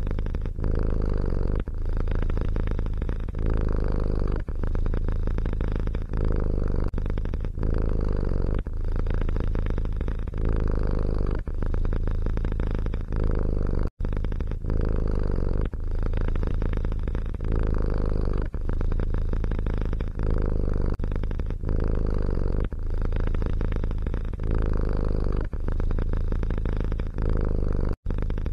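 Domestic cat purring close up, a steady low rumble that swells and eases in waves about every second and a half with its breathing. The sound breaks off for a split second about halfway through.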